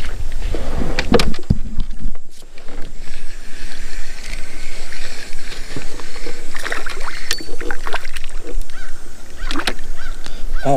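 Sounds of a canoe on the water: continuous splashing and water noise with several sharp knocks against the hull.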